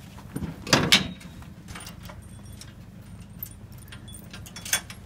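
A chain rattling against the steel bars of a cattle weighing crate, with loud metal clanks just under a second in and again near the end, and light jingling in between.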